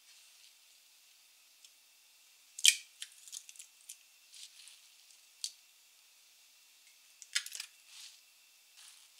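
Eggs cracked one at a time against a glass bowl. There are two sharp cracks, the loudest about two and a half seconds in and another about seven and a half seconds in, each followed by a few softer clicks and crackles.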